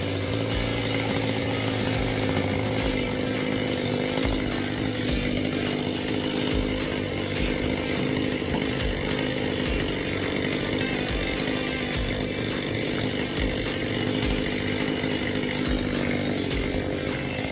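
Chainsaw engine running at a steady, high speed, holding an even pitch throughout, as when cutting through timber.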